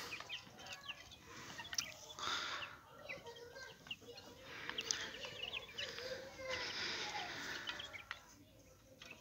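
A small flock of growing Light Brahma and Wyandotte chicks calling softly while they feed, many short high peeps and clucks overlapping throughout.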